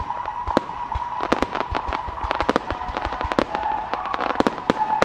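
Starmine fireworks display: a rapid, irregular run of sharp aerial shell bangs, several a second, overlapping one another.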